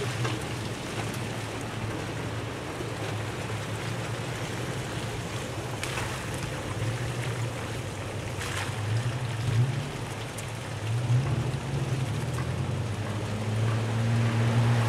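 Toyota FJ Cruiser V6 engines running as the SUVs drive past on a wet, muddy trail, the engine note rising and falling with the throttle. Underneath is a steady rushing noise from tyres and wind.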